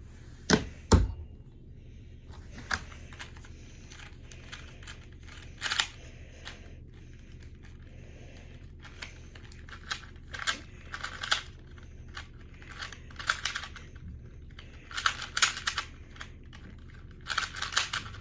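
A 2x2 Rubik's Cube being speed-solved: irregular bursts of quick plastic clicks and rattles as its layers are turned, after two sharp knocks near the start.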